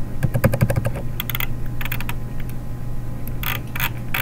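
Computer keyboard being typed on: a quick run of key clicks in the first second, then a few scattered clicks, over a steady low hum.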